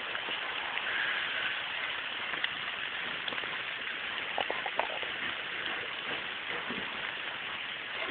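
Steady rain falling, an even hiss, with a few soft taps about halfway through.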